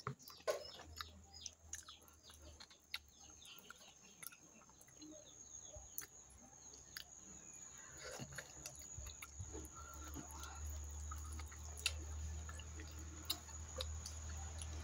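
Close mouth sounds of eating: chewing, sucking and lip-smacking as meat is gnawed off a beef shin bone held in the hands, with many small sharp clicks. A low hum grows louder in the second half.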